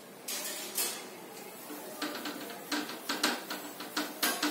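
A cloth wiping a whiteboard: soft rubbing at first, then from about two seconds in a quick run of short rubbing strokes, about four or five a second.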